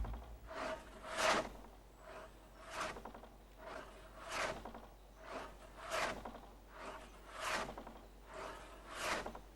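Hand saw cutting timber in a steady rhythm, each stroke a rasping swish, stronger and weaker strokes alternating about once every three quarters of a second.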